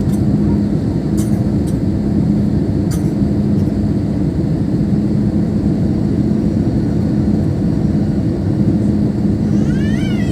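Airbus A320 cabin noise in flight on the approach: the steady rush of the engines and airflow heard from inside the cabin, with a steady low hum.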